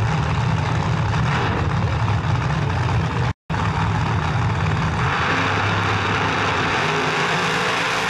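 Two no-prep drag cars' engines rumbling loudly on the starting line, then launching at full throttle about five seconds in. The sound cuts out for an instant shortly before the launch.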